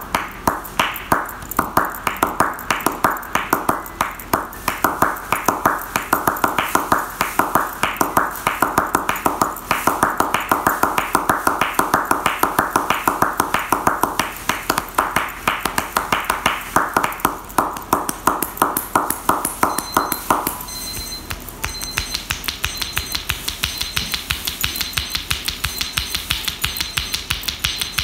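Massage therapist's hands slapping and chopping on a client's legs in percussive tapotement: a fast, very steady rhythm of hand strikes in several different tones, some low and some high. About two-thirds of the way through, the strikes turn sharper and higher-pitched.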